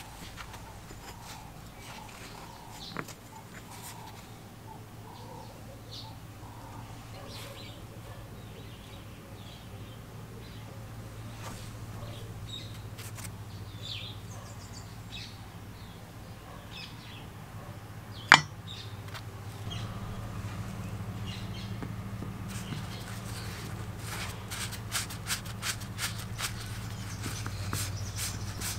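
Light metal taps and clinks as a metal valve plate and its small screws are handled and seated in a diaphragm compressor's housing, with one sharp click about two-thirds of the way through. Near the end comes a quick run of small clicks as a screwdriver drives a screw into the plate, over a steady low hum.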